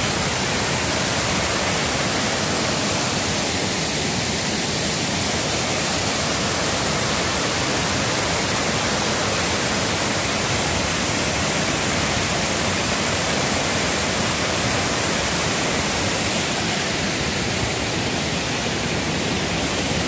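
Waterfall pouring over a rock ledge into a pool of white water, a steady, unbroken rush of falling water heard close up.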